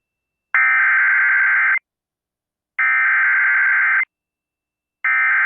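Emergency Alert System SAME header: three bursts of warbling digital data tones, each about a second and a quarter long with about a second of silence between them. They are the coded header that opens a new National Weather Service severe thunderstorm warning.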